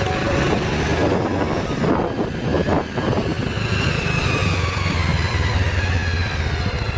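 Kawasaki Rouser motorcycle's single-cylinder engine running while the bike rides slowly along a street, its pitch easing down in the second half.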